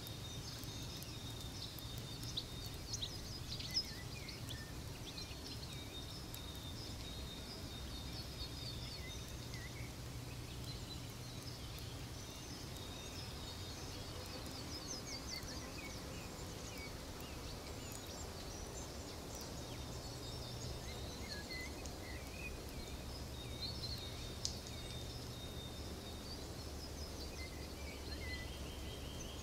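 Nature ambience track: many small birds chirping and twittering over a low, steady rumble, with a few sharp fire crackles a few seconds in and once more later.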